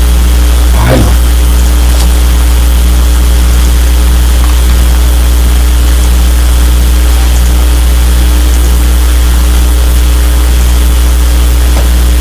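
Loud, steady low electrical hum with a buzz of evenly spaced higher overtones, the kind of mains hum a microphone picks up. There is a short faint voice-like sound about a second in.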